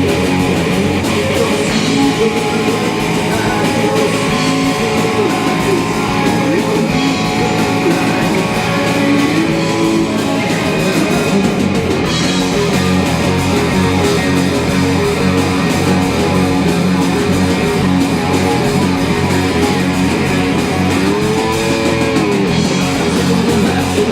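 Live rock band playing an instrumental passage, with electric guitars, bass and drums. Near the end a guitar bends its notes up and down.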